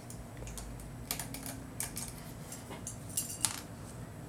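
Small plastic clicks and taps from fingers handling a plastic action figure's parts, a scattered handful, with the two sharpest clicks a little past three seconds in.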